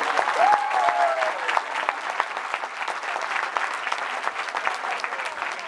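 Audience applauding, dense clapping that keeps up steadily.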